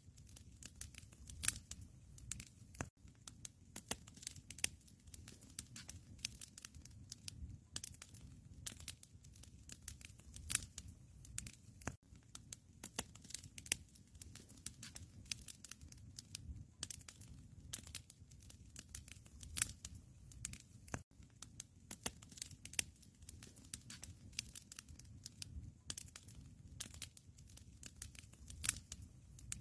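Wood fire crackling in a fireplace: a steady low rumble of flames with many small, irregular pops and snaps.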